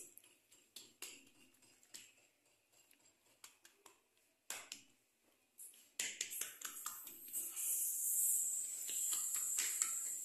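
Oiled hands pressing and spreading msemen dough thin on a smooth tiled work surface: a few soft, sticky slaps and clicks in the first few seconds, then from about six seconds in a continuous wet smearing and rubbing with a steady hiss.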